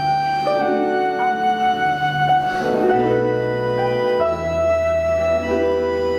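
Orchestra of Russian folk instruments playing slow, held chords, the bass and harmony shifting about every second.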